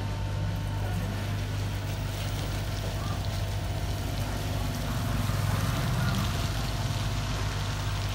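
Steady low hum of motor traffic on a wet street. A motor vehicle's engine swells as it passes, about five to six seconds in.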